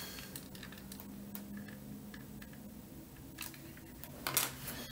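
Faint handling noise from work on a water-damaged keyboard circuit board: small scattered ticks and clicks, with a louder handling noise about four seconds in.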